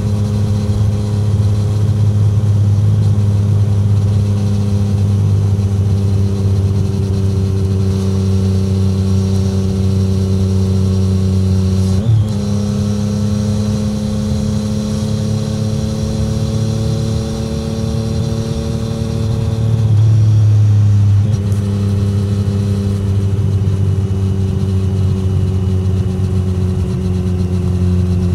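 Exhaust note of a 2017 Triumph Street Triple 765R's inline three-cylinder engine through an SC Project SC1-R titanium exhaust, cruising on part throttle with the pitch slowly falling, then rising, then falling again. The note breaks sharply for a moment about twelve seconds in and grows louder for a second or two around twenty seconds in.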